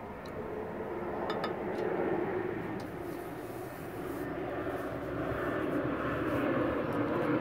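Steady drone of an aircraft passing overhead, growing louder, with a few light clicks of a wooden stirring stick against a glass dish in the first few seconds.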